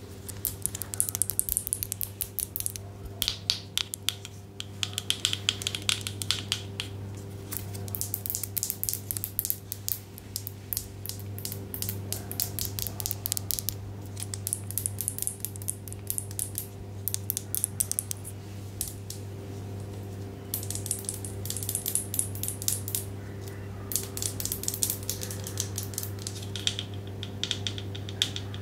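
Close-miked ASMR trigger: dense, rapid clicking and crackling in clusters of a few seconds, over a steady low electrical hum.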